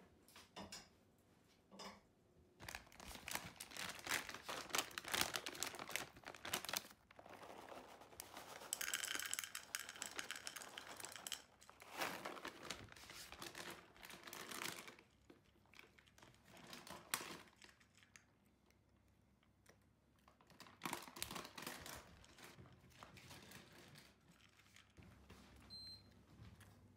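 A cat eating dry kibble from a bowl: crunching and clicking comes in bursts, with short pauses between.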